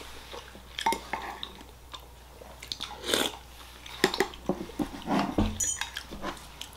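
Close-miked eating sounds: a person chewing and smacking on spoonfuls of pork congee, with small wet mouth clicks. A spoon clinks against the ceramic bowl once about five and a half seconds in.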